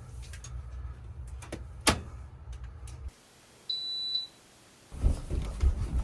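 A single short high electronic beep from the Comfort Zone ceiling heater's digital control as power reaches it when the breaker is switched on. Before it there is a low rumble with a sharp click; loud low thumps follow near the end.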